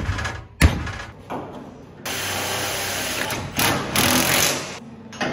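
Two mallet blows on a small steel plate clamped in a bench vise, about half a second apart. From about two seconds in, a red Milwaukee cordless power tool runs steadily with a high whine, swelling briefly near four seconds.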